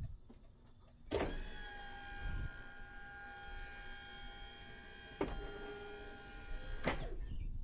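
Electric-hydraulic pump motor of a delivery truck's tuck-under lift gate running with a steady whine for about six seconds. It starts with a clunk about a second in, gives a knock partway through, and stops with another clunk near the end.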